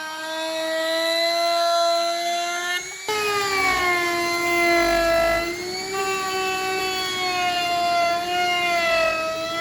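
Electric power tool motor whining steadily, its pitch sagging and shifting as the load on it changes, with an abrupt change about three seconds in and again near six seconds.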